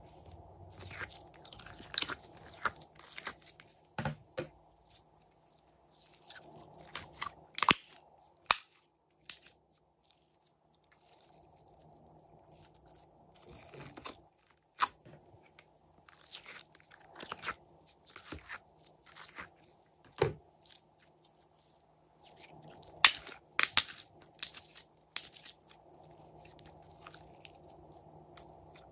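Glossy slime and foam beads being handled in a plastic tray: irregular sticky clicks, crackles and squishes in bursts, with short pauses between them.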